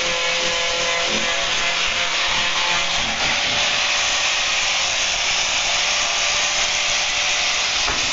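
Angle grinder with a sanding disc running steadily and grinding a plywood frame's corner round: a constant motor whine under a dense rasping hiss of abrasive on wood.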